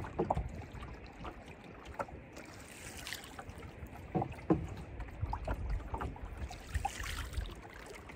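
Canoe being paddled: a wooden single-blade paddle dipping and pulling through lake water, with small splashes, drips and occasional light knocks.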